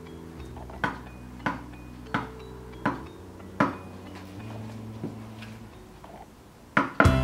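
A wood-carving chisel working a zelkova-wood nameplate: a series of sharp taps about one every 0.7 seconds, growing fainter after the first few, over soft background music.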